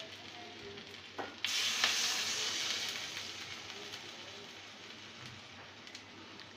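A little water poured into a hot pan of fried potatoes and spice paste: a light knock, then a sudden loud sizzle about a second and a half in that slowly dies down over the following seconds.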